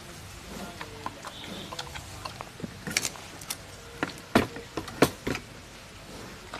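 Giant panda biting and chewing bamboo stalks: irregular sharp cracks and crunches of splitting bamboo, the loudest around four and five seconds in.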